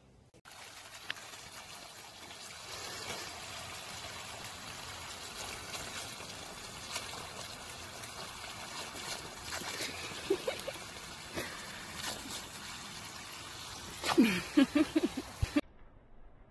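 Garden hose water spraying and splashing onto grass and dirt as a steady hiss, with scattered splashes and clicks. Shortly before it stops, a quick run of short pitched calls sounds over it, louder than the water.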